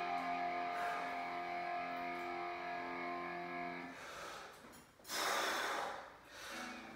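Guitar music for about the first four seconds, then it stops. About five seconds in comes a loud, hard breath, about a second long, from a lifter straining through a bench-press rep.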